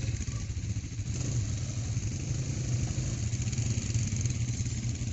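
Quad-bike (ATV) engine running steadily at low revs, with a strong low engine note that holds fairly even throughout.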